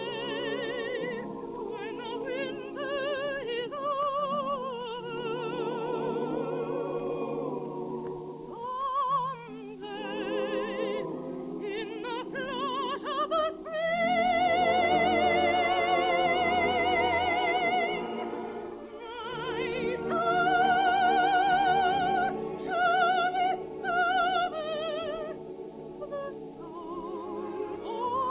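Operatic soprano singing a slow, sustained song with a wide vibrato, over orchestral accompaniment; the longest, loudest held notes come around the middle and again about two-thirds of the way through.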